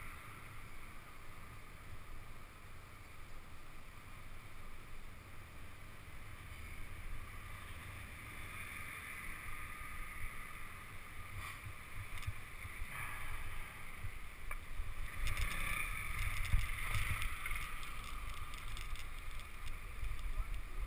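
Wind on the microphone and tyre rumble from a bike-mounted camera while cycling, with small knocks and rattles from the frame. The rumble and rattling grow louder over the last few seconds as the bike rolls onto cobblestones.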